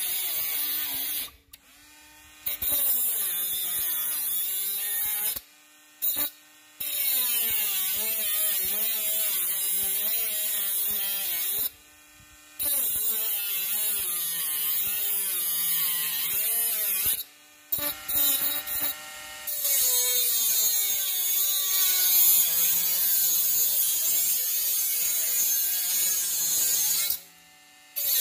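Bosch GWS 12V-76 cordless mini angle grinder running, its motor whine dipping in pitch and recovering again and again as the disc is loaded, over a steady high hiss. The sound breaks off suddenly for about a second several times.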